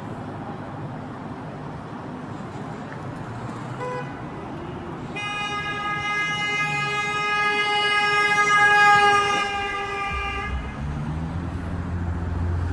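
City traffic noise, with a vehicle horn sounding one long, steady blast about five seconds in that lasts about five seconds. Near the end a heavy vehicle's engine rumbles low.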